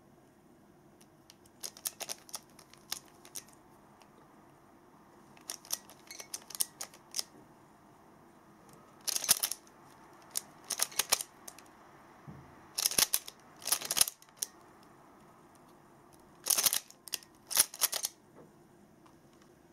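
Plastic Pyraminx puzzle being turned fast with finger tricks: quick runs of sharp clicks and clacks as its layers snap round. They come in about five bursts of a few turns each, with short pauses between, each burst one last-layer algorithm.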